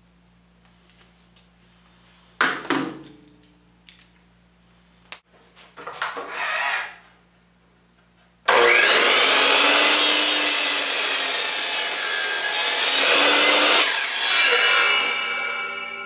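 Porter-Cable miter saw started and cutting a 45-degree miter through a pine 2x4 for about six seconds, then the blade winding down with a fading whine. A couple of knocks come first, well before the cut.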